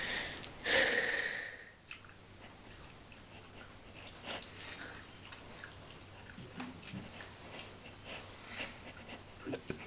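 A mandarin orange being peeled and eaten: quiet chewing with small clicks and rustles, after a brief louder sound about a second in.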